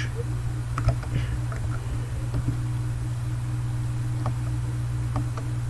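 A steady low hum with a few faint, scattered clicks of computer keys and a mouse being used.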